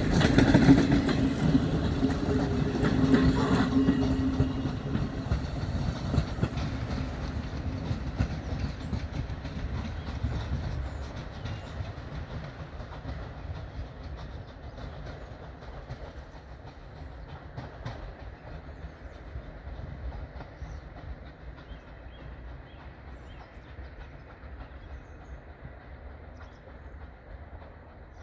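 Ol49 steam locomotive hauling a passenger train away, its coaches rolling past over the rail joints. A steady tone lasts the first few seconds, and the whole train's sound then fades steadily as it goes into the distance.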